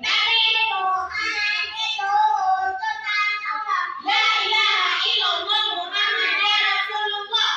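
Young children singing a song together, with a brief break about four seconds in.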